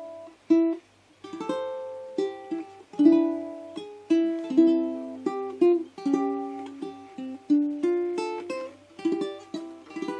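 ACE D65 all-solid-mahogany tenor ukulele played solo, with fingerpicked notes and strummed chords that ring and die away one after another.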